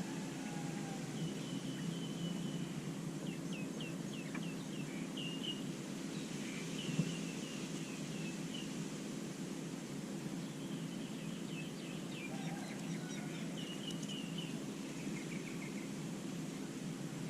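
Bird chirping in repeated quick runs of short, high notes over a steady low background rumble, with a single sharp click about seven seconds in.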